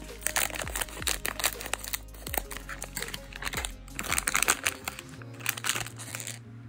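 Crinkling and rustling of a foil blind-bag packet as it is snipped open with scissors and pulled apart by hand, over background music. The crinkling thins out near the end.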